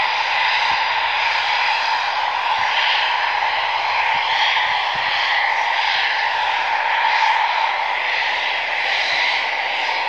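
Eurofighter Typhoon's twin Eurojet EJ200 turbofans whining steadily at low taxi power as the jet rolls past.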